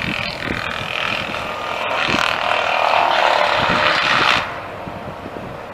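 Excavator-mounted brush mulcher on a John Deere 200D LC shredding brush and saplings: a dense grinding rush that grows louder, then drops off sharply about four and a half seconds in.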